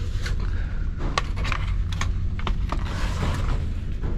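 Large sheet-metal cover panel of a fan coil unit being worked loose and handled: a scatter of short metal knocks, clicks and scrapes over a steady low rumble.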